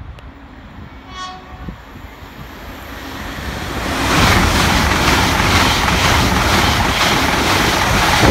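An LNER Azuma high-speed electric train gives a short horn blast about a second in while approaching, then passes at speed with a rushing rumble and wheel clatter that builds from about three seconds in and stays loud.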